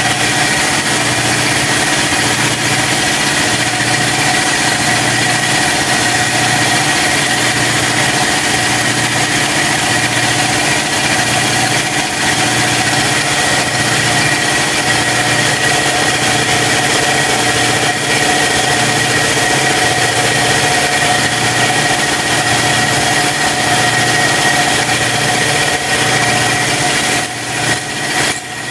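Air compressor running steadily, a hum with a hiss, supplying continuous air at about 150 psi into the cylinder so that the valves are held shut while their springs are compressed. Near the end the sound turns choppy.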